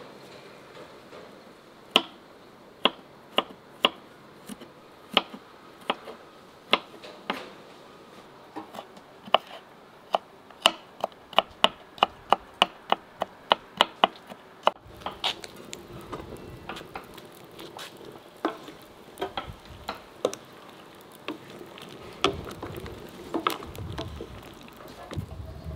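Kitchen knife chopping garlic cloves on a wooden cutting board: single chops about a second apart, then a quick run of about three to four chops a second around ten seconds in. From about fifteen seconds in, a wooden spoon stirs potatoes in a metal pot over a wood fire, with scattered soft knocks over a low steady background.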